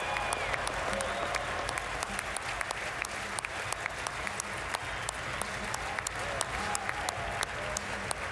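Large arena crowd applauding in a standing ovation: dense, steady clapping with sharp individual claps from people close by.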